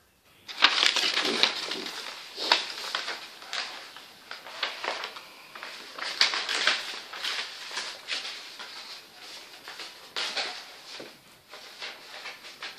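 Sheets of paper being handled and flipped, an irregular rustling and crackling that starts about half a second in.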